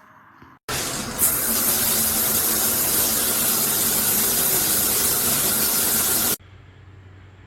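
Water spraying steadily from a rain shower head, a loud even hiss that cuts in about a second in and cuts off abruptly near the end.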